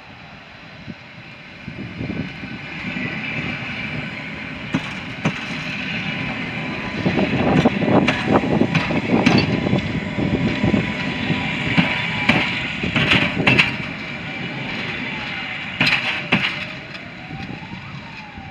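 EN57AL 'Alina' electric multiple unit coming into its terminus and passing close by as it slows. A low rumble builds and is loudest in the middle, with a high whine and a run of sharp knocks from the wheels over the rail joints, then it fades as the train moves away.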